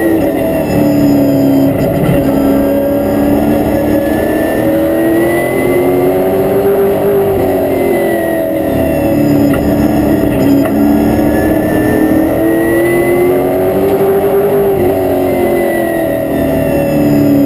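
Race car's engine heard from inside the cockpit, its pitch climbing and falling in two slow waves as the car laps the oval: the engine winds up along each straight and drops back into each turn.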